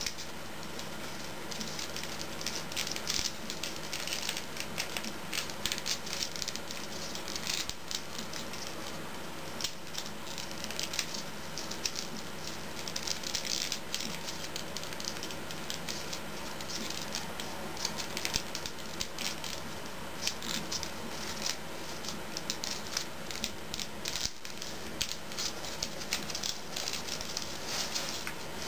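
Sheet of origami paper crinkling and rustling in the hands as it is pleated and creased into an origami leg, with many small, irregular crackles throughout.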